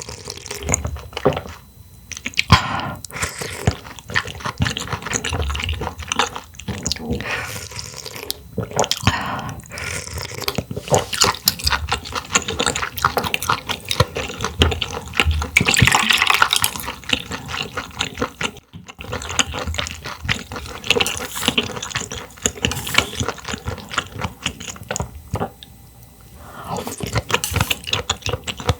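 Close-miked wet eating sounds of someone chewing and slurping clams: a dense run of moist clicks and smacks, with short pauses now and then.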